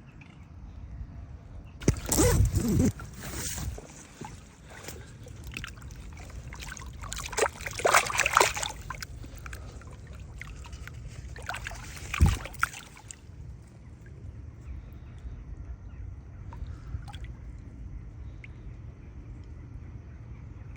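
Water splashing and sloshing in a few loud bursts during the first half, then settling to a low steady background.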